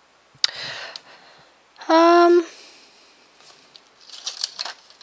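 Masking tape being pulled and torn: a sharp snap with a short rasp about half a second in, and crackly rasps near the end. The loudest sound, about two seconds in, is a short steady pitched tone lasting about half a second.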